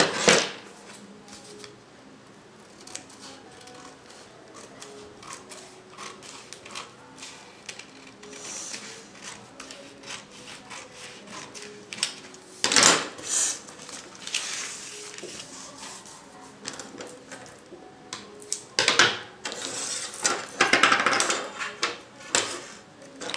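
Scissors cutting through pattern paper and the paper being handled: crisp snips and rustles, loudest about twelve to fifteen seconds in and again near the end, over faint background music.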